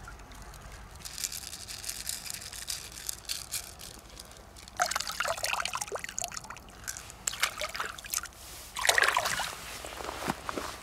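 Shallow river water trickling and splashing as a freshwater mussel shell is dipped and rinsed at the bank, in irregular clusters of small splashes and drips, with a louder burst of splashing and scuffling near the end.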